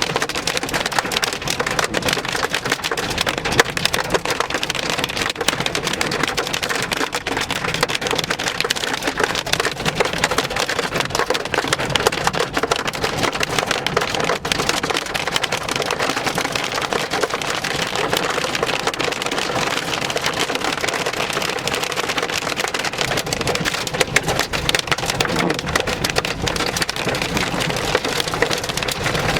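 Hail pelting the roof and body of a vehicle, heard from inside the cabin: a dense, steady clatter of countless small hits.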